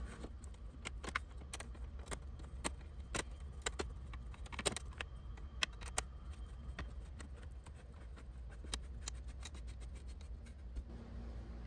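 A bolt run in by hand with a red-handled hand driver: faint, irregular small metallic clicks and ticks of the tool and bolt turning into a tapped washer, which stop shortly before the end. A steady low hum lies underneath.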